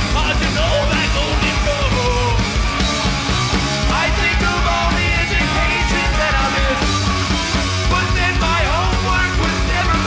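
Live heavy rock band playing loud, with two vocalists singing and shouting into microphones over electric bass and the full band.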